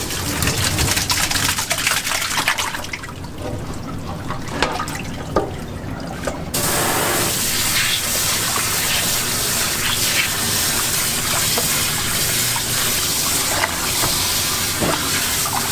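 Milky soybean-milk marinade pouring and splashing off chicken pieces into a plastic colander in a steel sink. About six and a half seconds in, a faucet sprayer comes on with a steady hiss of running water over the chicken while gloved hands rinse it.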